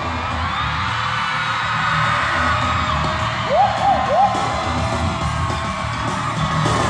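K-pop dance track playing loud over a concert PA, with a pulsing bass beat and a crowd screaming over it. Three quick rising-and-falling whoops come about halfway through.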